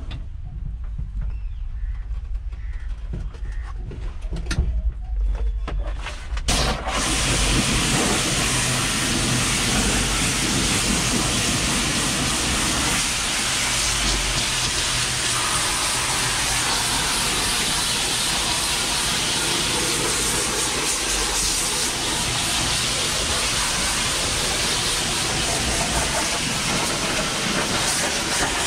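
Gaocheng GC-RS3 2300 W electric pressure washer spraying. After a low rumble and a few knocks, the jet cuts in suddenly about six seconds in, and a loud, steady hiss of water blasts against the inside of a vehicle cab's roof and walls.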